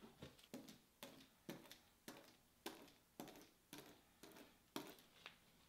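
Glue brush spreading wood glue across an MDF veneer substrate in short, faint strokes, about two a second.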